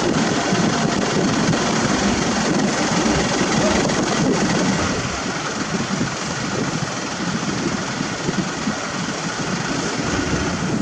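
Heavy road-paving machinery running: a steady, dense engine and mechanical din with no clear pitch, easing slightly in level about halfway through.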